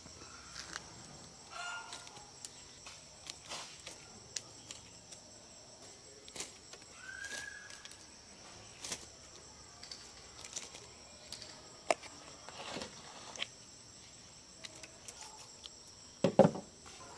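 Hand pruners snipping jasmine stems: sharp clicks at irregular intervals of a second or two, over a steady high chirring of insects.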